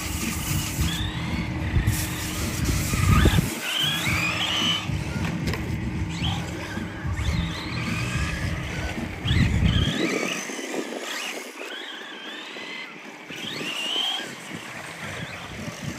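Radio-controlled cars running on a track, their motors whining up and down in pitch over and over as they speed up and slow down. A low rumble underneath stops about ten seconds in.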